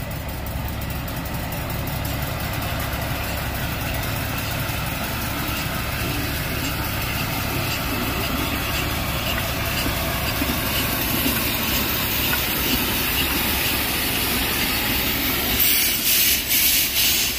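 Small narrow-gauge steam locomotive hissing steam over a steady low rumble, then chuffing about two to three times a second near the end, with steam blowing from its open cylinder drain cocks.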